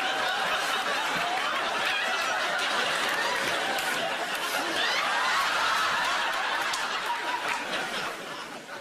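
A large audience laughing together, a dense sustained laugh that dies down near the end.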